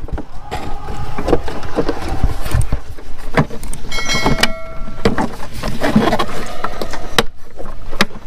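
Air filter housing of a Toyota Alphard being handled by hand: irregular plastic knocks and clicks as the dirty filter comes out and the new one goes in. A brief ringing note sounds about four seconds in.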